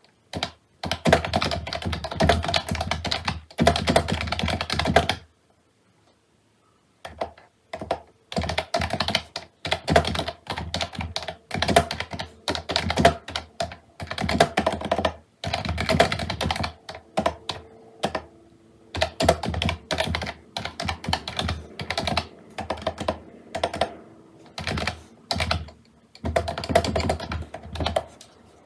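Typing on a computer keyboard: rapid runs of keystroke clicks, with a pause of about a second and a half about five seconds in.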